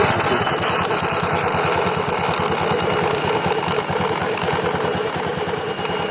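Honda Scoopy FI scooter engine settling back toward idle after the throttle is released, a steady rapid pulsing with a few scattered clicks. The odd CVT-like noise on throttle release here comes from a stick of wood caught against the wheel, not from the CVT.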